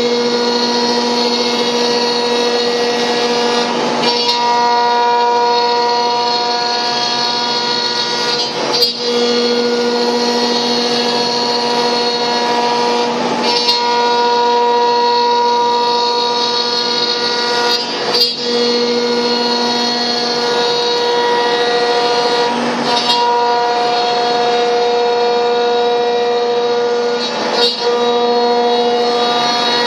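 CNC router spindle cutting MDF with a steady high-pitched whine. Its tone shifts every few seconds, and a brief rasping sweep comes about every four to five seconds.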